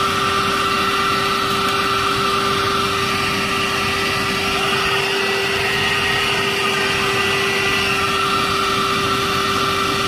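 Philips FC6141 12 V handheld car vacuum cleaner running steadily with a narrow crevice nozzle fitted: an even motor hum with one held tone over the rush of sucked air.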